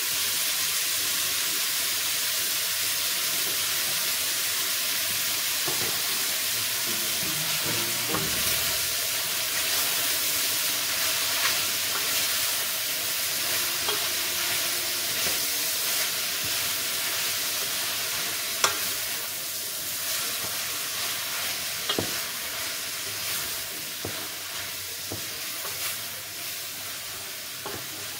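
Onions, mushrooms, ham and red pepper frying in olive oil in a stainless steel pot, sizzling steadily as fresh greens are stirred in with a wooden spoon, with a few sharp clicks of the spoon against the pot. The sizzle slowly quietens in the second half.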